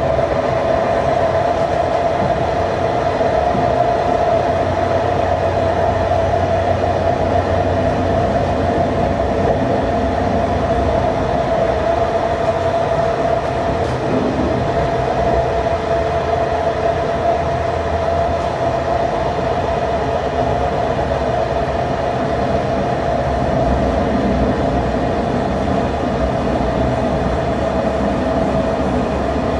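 TCDD DE 24000 diesel-electric locomotive working steadily with its train under way: a continuous engine drone with a steady mid-pitched tone, over the rumble of the train on the rails.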